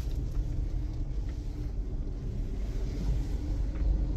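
Steady low rumble of a car's engine and road noise, heard inside the cabin.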